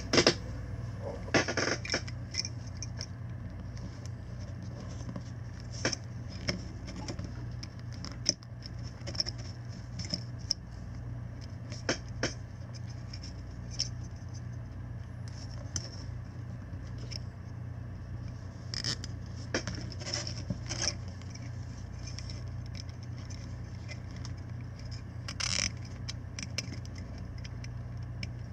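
Fingers handling the wire harness and plastic-cased circuit board of an HKS turbo timer, making scattered small scrapes and clicks over a steady low hum.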